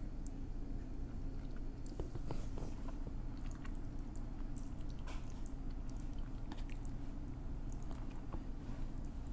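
A person chewing spaghetti, with short wet mouth clicks and smacks from about two seconds in, over a steady low hum.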